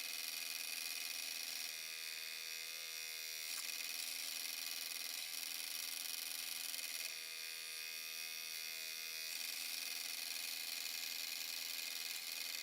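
Scroll saw running with a steady buzzing hum as it cuts a piece of purpleheart wood freehand along a marked design. Twice, about two seconds in and again about seven seconds in, the tone changes for a second or two.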